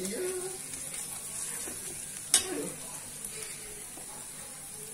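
Chopped onions and ginger-garlic paste frying in oil in a stainless-steel kadhai, sizzling steadily as a steel ladle stirs them. The ladle clinks sharply against the pan once, about two and a half seconds in.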